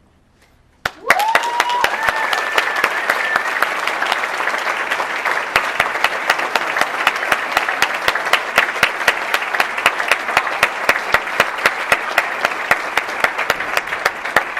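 Audience applauding: the clapping breaks out suddenly about a second in and carries on as a steady, dense round of applause.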